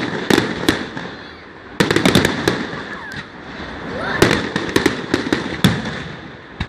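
Fireworks display: volleys of sharp bangs and crackling pops in three clusters, about a third of a second in, near two seconds in and from about four seconds in.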